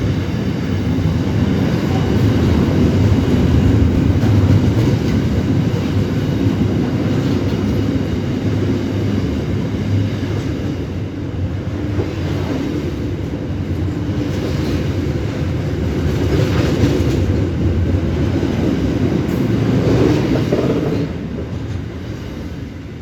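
Freight train's wagons rolling past, steel wheels clattering over the rails in a steady rumble, with the noise falling away about 21 seconds in.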